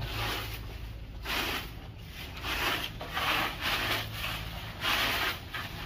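Sapu lidi (palm-rib stick broom) sweeping the ground, a scratchy scraping stroke about once a second.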